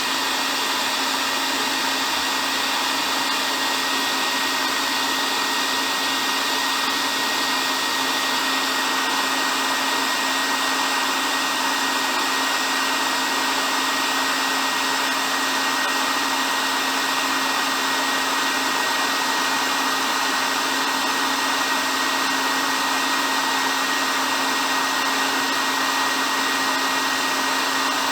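Hair dryer running steadily: a continuous blowing hiss over a low motor hum, with a faint thin whine on top.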